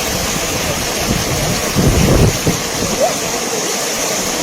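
Steady rushing of floodwater from a river that has burst its banks, with a low wind rumble on the microphone about two seconds in.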